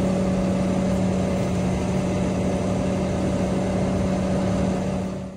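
Service truck's diesel engine running with the Stellar crane's drive working as the boom is raised by remote, a steady mechanical hum with a held tone that stops suddenly at the end.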